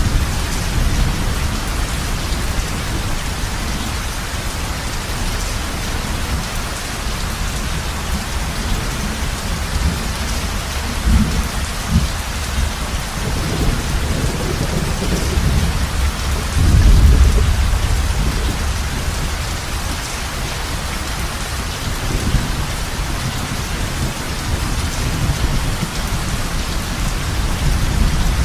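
Heavy rain falling steadily on a roof, with low rumbles of thunder about eleven seconds in and a louder roll about seventeen seconds in.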